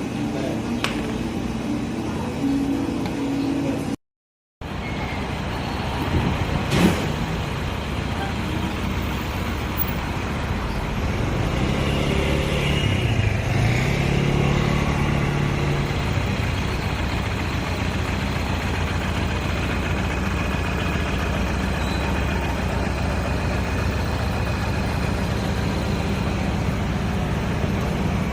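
Steady street traffic noise, with a brief dropout about four seconds in.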